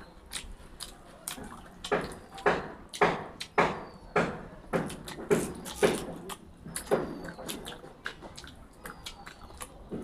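A person eating close to the microphone: chewing and biting, with wet mouth sounds, about two chews a second, loudest through the middle of the stretch.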